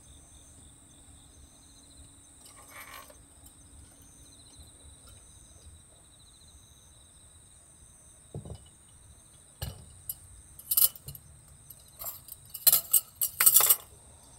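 Crickets chirring steadily in the background. From about eight seconds in, a run of sharp clinks and taps as a small glass and other items are handled and set down on a wooden counter, loudest near the end.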